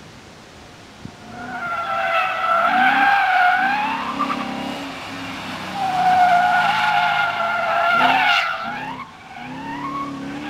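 BMW E36 with a swapped-in V8, driven hard through the corners: its tyres squeal in two long, wavering spells, about a second and a half in and again around six seconds in, over the V8's engine note, with a shorter squeal near the end.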